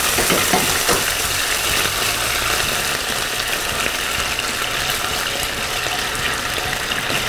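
Hot sugar caramel sizzling and crackling steadily in a nonstick skillet just after water has been added to it, while a spatula stirs it: the caramel turning into Vietnamese caramel sauce (nước màu).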